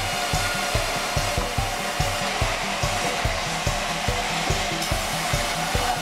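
Sawmill band saw running with a steady whirring hiss and a constant whine as a log is fed through it. A low, regular thumping beat, about four or five a second, runs underneath.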